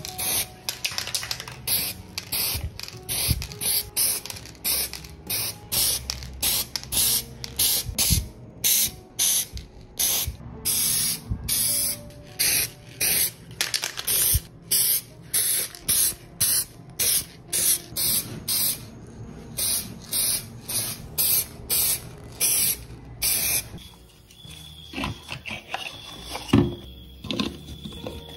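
Aerosol spray-paint can sprayed in many short hissing bursts, about one or two a second, coating small model car parts in paint. The spraying stops about 24 seconds in, giving way to quieter handling with one sharp click near the end.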